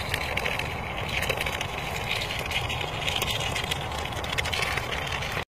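Steady outdoor noise with a low rumble, typical of wind on the microphone. It cuts off suddenly at the end.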